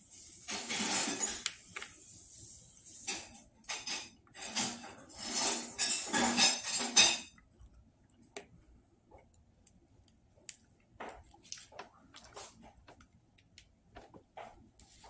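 Eating crunchy breaded fried chicken up close: loud crisp crunching and tearing of the coating for about the first seven seconds, then quieter chewing with scattered small clicks.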